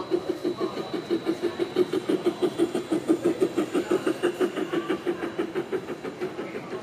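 G-scale model train running past on its track, a red model tank engine pulling open freight wagons. It makes a rapid, even beat of about seven pulses a second, loudest about three seconds in as the train passes, then fading.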